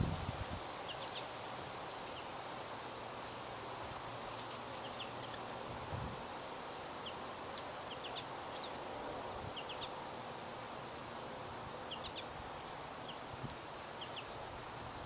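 Scattered short, high chirps from small finches, pine siskins and American goldfinches, over a steady outdoor hiss. A couple of sharp clicks come a little past halfway.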